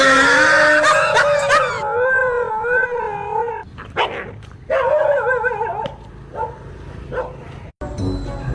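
A dog howling in long wavering cries: one about three and a half seconds long, then a shorter one a second later. Music starts near the end.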